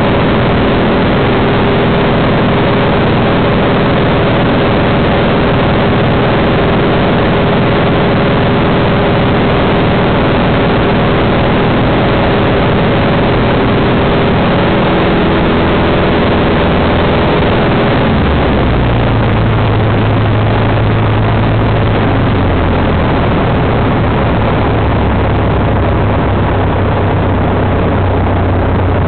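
Single-engine Cessna's piston engine and propeller in cruise, heard from inside the cabin as a loud, steady drone with rushing air noise. Its tone changes about two thirds of the way through.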